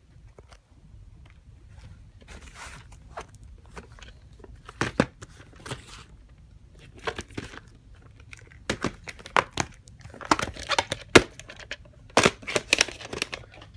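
Plastic VHS clamshell case and cassette being handled and opened: a string of sharp plastic clicks and snaps over light rustling, the clicks coming thick in the last few seconds.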